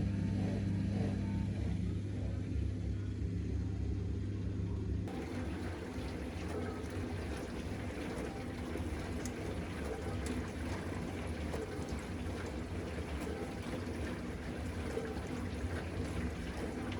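Dishwasher running: a steady motor hum with water rushing and spraying inside the tub. The water noise grows fuller about five seconds in.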